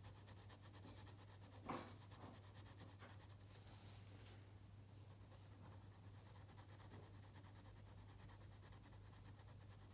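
Faint scratching of a pencil shading on sketch paper, over a low steady hum. A brief soft knock comes a little under two seconds in.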